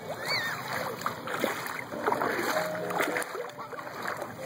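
Shallow water sloshing and splashing in irregular bursts as a child's hands dig and scoop in ankle-deep water at the shoreline, with faint voices in the background.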